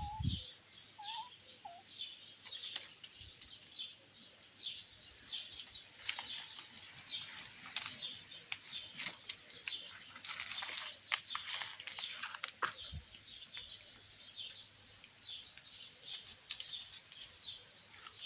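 Rustling in dry vegetation: many short, scratchy rustles and crackles throughout, with a few faint short chirps in the first second or so.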